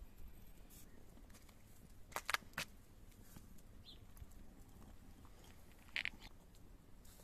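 Three quick, sharp clinks a little after two seconds, from glass and metal teaware being handled as saffron is set to brew: a glass infuser in a glass teapot and an iron kettle. Otherwise faint outdoor quiet.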